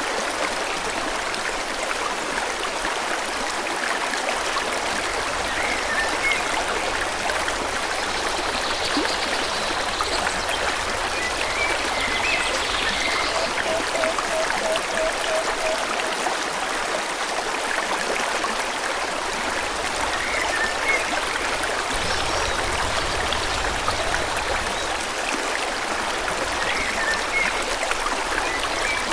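Forest stream water rushing steadily, with faint bird chirps now and then and a short run of quick repeated notes about halfway through.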